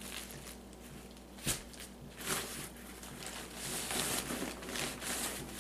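Crinkling and rustling of backpacking gear being handled: stuff sacks and pack fabric, in irregular bursts that grow busier near the end, with a single light knock about a second and a half in.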